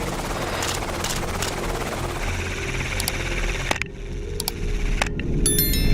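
Helicopter in flight, a steady low drone of rotor and engine. The sound changes abruptly twice in the second half, and a brief cluster of high tones comes near the end.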